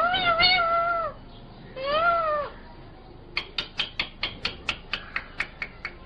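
Rose-ringed (Indian ringneck) parakeet giving two drawn-out, meow-like calls, the first about a second long and level in pitch, the second shorter and arched. About three seconds in, a quick, even run of sharp clicks follows, about five a second.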